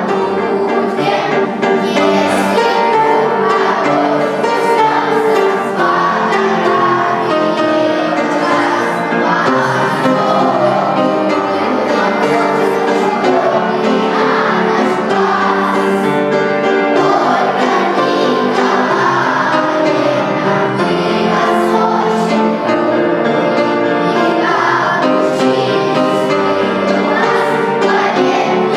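A song with instrumental accompaniment and a group of voices singing together.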